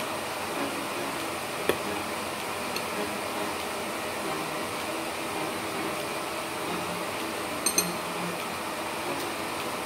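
Kitchen exhaust fan running with a steady hum. A metal fork clicks against a plate about two seconds in, then twice in quick succession near the end.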